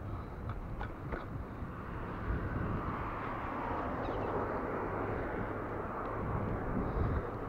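Bicycle riding over paving stones: a steady rush of tyre and wind noise on the microphone, with a few light clicks and rattles from the bike about a second in, swelling a little in the middle.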